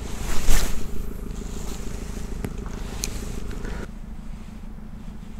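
Spinning reel (Nautilus Arta 2500) being cranked to retrieve a spoon, a steady mechanical whir that stops abruptly about four seconds in, leaving a lower hum. A short rush of noise comes about half a second in, and there are a couple of light clicks.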